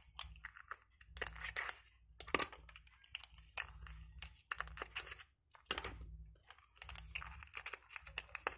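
Small clear plastic capsule cases holding glass marbles being handled and set down on a table: a run of light, irregular plastic clicks and taps, over a faint low hum.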